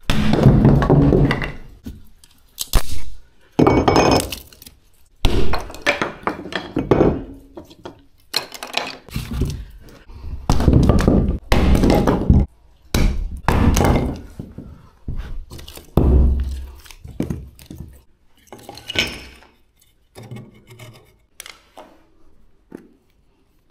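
A run of heavy wooden-sounding thunks and knocks, roughly one every second or two, with occasional clinks and snaps: objects being handled and set down hard.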